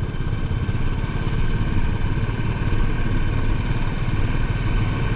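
Royal Enfield Bullet 500's single-cylinder engine running steadily at cruising speed, its firing strokes an even, rapid thump, over a steady hiss.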